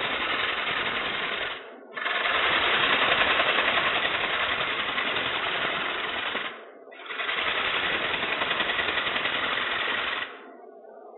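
Turning tool cutting a wooden hat blank spinning on a lathe, shavings coming off: three cuts of a few seconds each, broken by short pauses about two seconds in and about seven seconds in, and stopping about ten seconds in.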